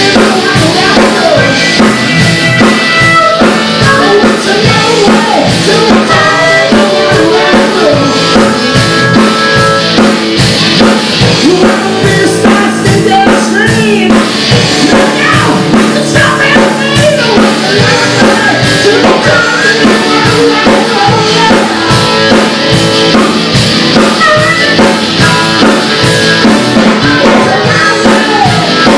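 Live band playing a rock-blues song: acoustic guitar and drum kit, with a woman singing into a microphone over them.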